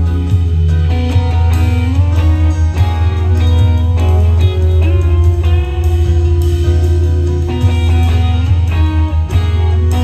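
A live rock band plays an instrumental passage, with an electric twelve-string guitar playing a melodic line over a heavy, booming bass and drums. Some notes bend or slide in pitch.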